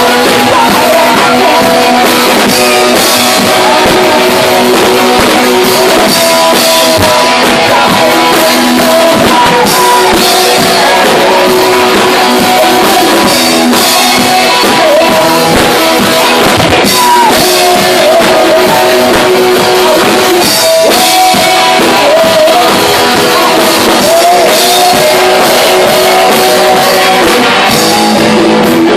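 Rock band playing live: electric guitar and drum kit with a singing, at times shouting, vocal, loud and steady throughout.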